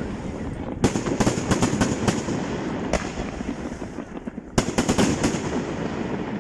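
Fireworks display: rapid volleys of sharp bangs and crackles in two clusters, about a second in and again past four and a half seconds, over a continuous low rumble.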